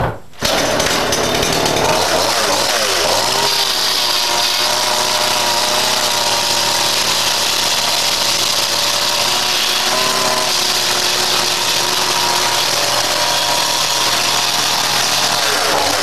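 Chainsaw running at high speed, cutting through an internal partition wall. It drops out briefly near the start, then runs steadily, with small shifts in pitch as it bites.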